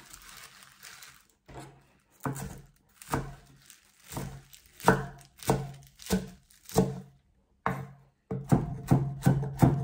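Chef's knife chopping rocket leaves on a wooden cutting board: single knocks of the blade on the wood, a little under one a second, speeding up into quicker chopping near the end.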